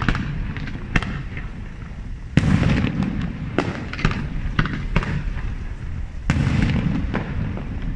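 Aerial firework shells bursting in quick succession: sharp bangs every half second to a second, with two heavier booms about two and a half and six seconds in, each followed by a low rolling rumble.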